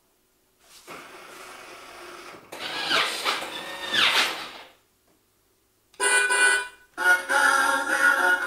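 Electronic sound effects from a ride-on toy car's built-in speaker: a recorded engine sound that starts up and revs twice with a sweeping pitch, then after a pause a short electronic beep and the start of a tinny tune.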